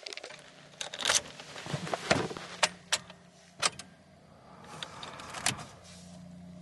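Car keys jangling and clicking in a Subaru's ignition as it is switched on, a series of irregular sharp clicks over a faint steady hum.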